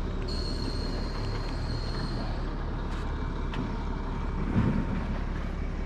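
Steady low rumble of a truck engine running, with a thin high whine for about two seconds near the start.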